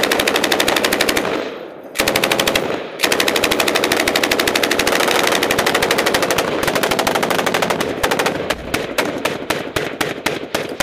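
Belt-fed machine guns firing long, rapid, sustained bursts close to the microphone, with a short break about two seconds in. Near the end the firing thins out into separate shots.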